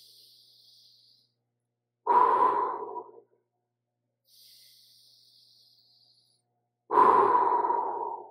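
A person doing deep, paced breathwork: two loud breaths of about a second each, roughly five seconds apart, each starting suddenly and fading, with fainter, longer hissing breaths between them.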